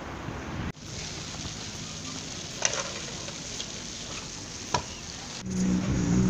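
Stunt scooter wheels rolling and grinding over stone paving, a rough crackling hiss with two sharp clacks of the scooter hitting the ground or ledge. Near the end a louder, steady low hum comes in.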